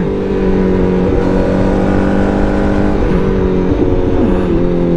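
Honda CBR1000RR-R SP sport bike's inline-four engine running steadily at cruising speed, with wind rush. The engine note drops a little about three to four seconds in as the throttle eases.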